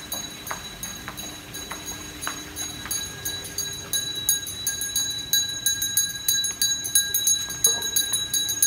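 Small metal bells jingling in a fast, even rhythm, their bright high ringing held throughout, with a few sharp clicks in the first few seconds.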